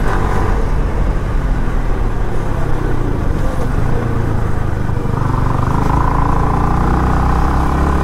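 Yamaha R15 V3's 155 cc single-cylinder engine running as the bike rides along, heard from the rider's seat under a steady rushing noise. The engine note settles into an even pitch about five seconds in.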